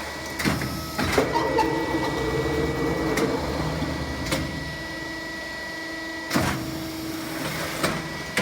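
Ceiling-fan rotor die casting machine running through its motions: a steady high whine and a humming tone that changes pitch, broken by about six sharp clunks and knocks as its parts move and stop.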